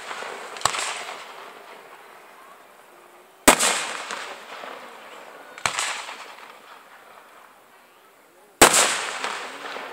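Aerial firework shells bursting in the sky: four sharp bangs, the loudest about three and a half seconds in and near the end. Each bang fades out in a tail of echo over a second or two.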